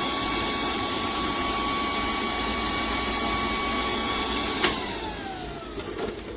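TOAUTO A1X portable PCP high-pressure air compressor running with a steady whine. About four and a half seconds in there is a sharp click and the motor winds down, its whine falling in pitch, followed by a few light knocks near the end.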